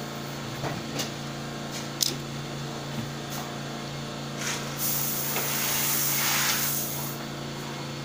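Small die-cast toy car rolled along a rough wooden tabletop, its wheels giving a hissing scrape for about two seconds in the second half. A few sharp taps come earlier, the sharpest about two seconds in, over a steady low hum.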